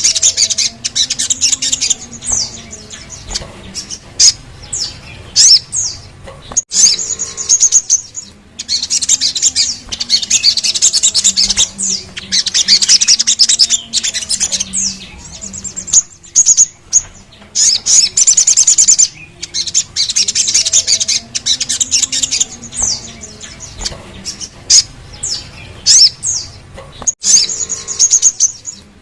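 Sogon sunbird singing: bursts of rapid, high-pitched trilled song a few seconds long, separated by short sharp falling call notes.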